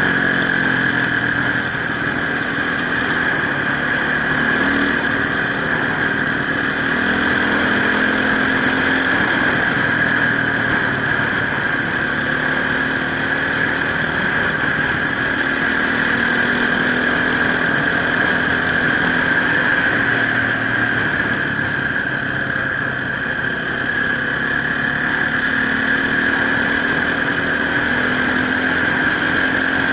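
Enduro dirt bike engine running as it is ridden off-road, its pitch rising and falling with the throttle, under a steady high whine.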